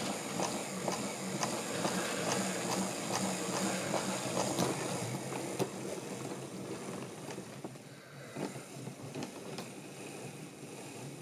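OO-gauge model train running on sectional track: a small electric locomotive motor whirring while the wheels click steadily over the rail joints, about two clicks a second. It fades off in the second half as the train moves away.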